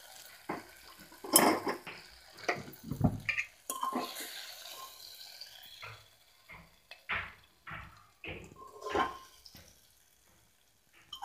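Metal spoon scraping and knocking against a metal pan and bowl while cooked onion and tomato are scooped out. The knocks are irregular, and a couple ring briefly.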